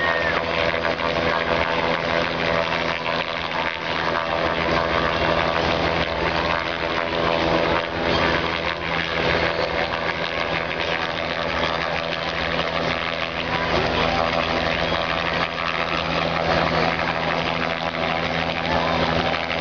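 Two-bladed light helicopter hovering low overhead: a steady, unbroken drone of rotor and engine with several constant tones.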